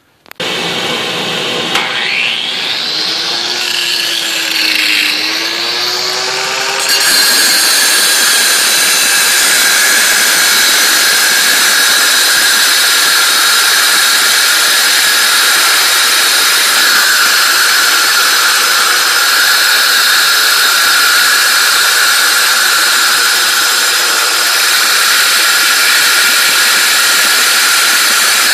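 Angle grinder fitted with a 7-inch diamond-tipped masonry blade cutting through the concrete fill of a steel Lally column close to the floor. The motor's pitch rises and falls for the first few seconds, then about seven seconds in it settles into a louder, steady high whine with hiss as the blade grinds through.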